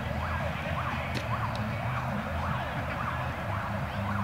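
Siren wailing in a fast, repeated up-and-down sweep, about two cycles a second, over a low rumble.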